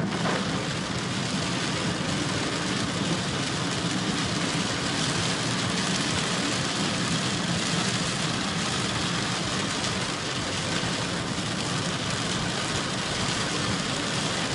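Heavy rain hitting a car and tyres hissing on a flooded road, heard from inside the moving car as a steady, even wash of noise with a low engine hum beneath.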